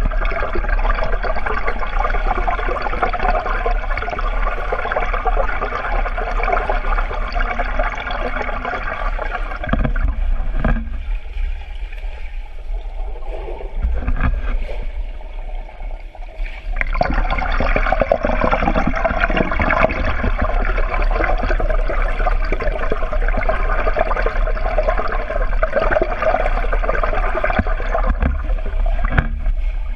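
Swimming-pool water heard from underwater: a continuous rushing, bubbling noise from swimmers' kicks and strokes over a steady low hum. The water noise drops away for a few seconds about midway, then returns.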